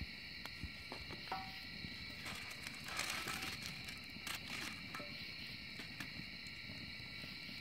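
Wood fire in a metal fire bowl crackling with scattered sharp pops, swelling into a louder flurry of crackling about three seconds in. Crickets chirr steadily behind it.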